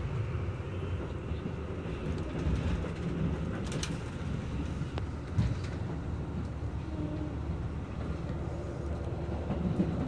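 Steady low rumble of a Nanki limited express train running, heard inside the passenger car, with a few light clicks and one brief knock about five and a half seconds in.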